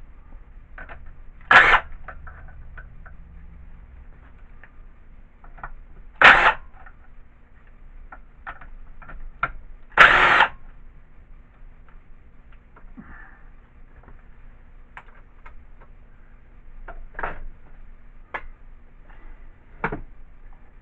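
Impact wrench hammering loose the cylinder head bolts of an old air compressor in short bursts: three loud ones about two, six and ten seconds in, and two weaker ones near the end, with lighter clicks and knocks between.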